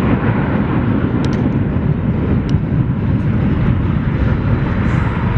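Boeing 747-400 freighter's four jet engines running, a loud steady low rumble with a couple of faint clicks over it.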